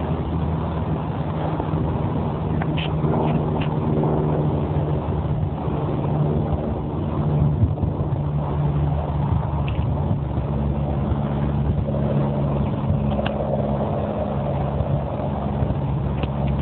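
A motor running steadily with a low hum whose pitch shifts a little now and then.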